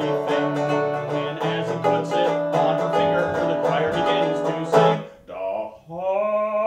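Metal-bodied resonator guitar strummed in a steady rhythm, ending on a strong chord about five seconds in. A man's singing voice comes in shortly after on a long held note.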